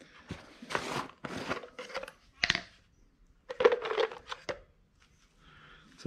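Hands opening a plastic parts jar and rummaging through the small metal parts inside: a series of short scraping, crinkling handling noises with brief pauses.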